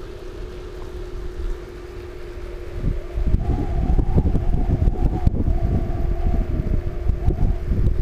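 Wind buffeting the microphone in a strong headwind while riding a VSETT 8 electric scooter uphill, over a steady whine from its 600 W hub motor. The wind rumble gets much louder about three seconds in.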